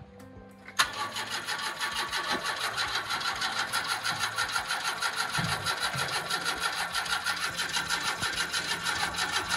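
A 1971 Opel Kadett B's starter motor cranking the engine in a fast, even rhythm, beginning suddenly about a second in, without the engine catching.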